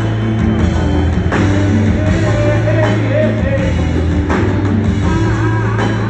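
Live band music: acoustic guitar over a steady bass line and drums, with a strong drum hit about every second and a half.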